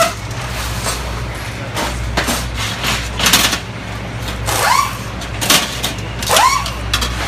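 Tool clicks and metal clanks over a steady low hum, with two short rising whines in the latter half.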